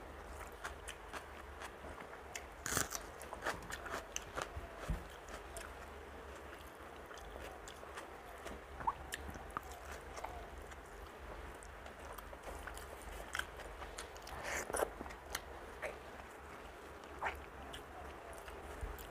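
Close-miked eating sounds of someone eating rice and dal by hand: wet chewing, mouth clicks and smacks, with louder bursts of crunching a few seconds in and again late on.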